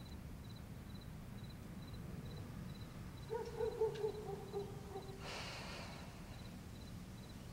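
Quiet room with a faint, regular tick about twice a second, like a clock. About three seconds in, a woman gives a soft, held voiced sigh lasting about two seconds, followed by a breath.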